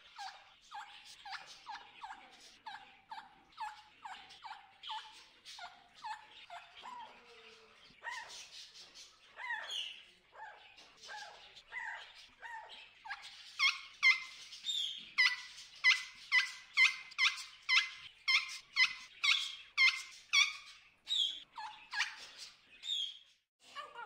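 Macaws calling: a long series of short, harsh calls, several a second, each dropping in pitch, growing louder and more evenly spaced, about two a second, past the middle.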